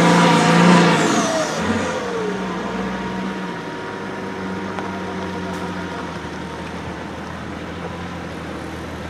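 Engine of a Mercedes Unimog trial truck revving hard, its revs falling away between one and two seconds in; it then runs on steadily and more quietly at low revs.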